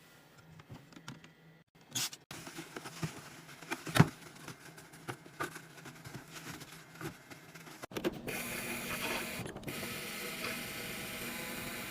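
Clicks and taps of items and plastic containers being handled and set in place while a mini fridge is restocked, with one sharp click about four seconds in. From about eight seconds the handling turns into a denser, steadier rustle.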